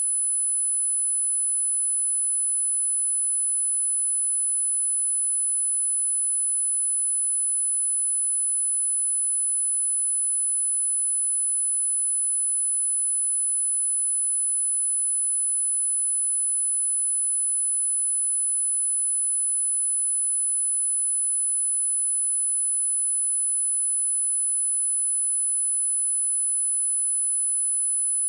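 A steady, unbroken 10044 Hz sine test tone: a single high-pitched whistle-like pitch at constant level, used for speaker testing and speaker cleaning.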